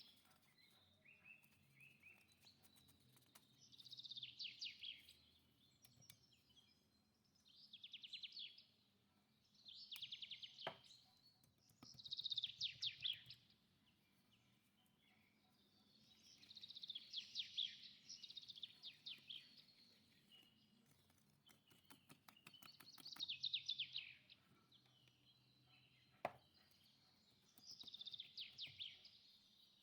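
Faint songbird song: repeated phrases of rapid high trills, each a second or two long, every few seconds. Two sharp clicks come in between, one about a third of the way in and one near the end.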